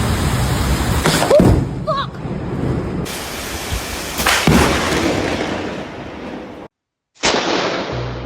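Thunder: loud, continuous rumbling with sharp cracks about a second in and again past four seconds. The sound drops out briefly near the end, then a fresh clap begins and rolls away.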